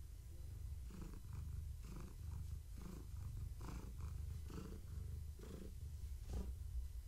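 Tabby cat purring steadily while being stroked, the purr swelling and easing about once a second with each breath.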